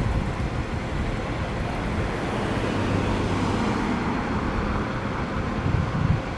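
Diesel engine of a 2018 Spartan Metro Star fire engine running at idle in the station bay, a steady low rumble as the rig powers up to respond.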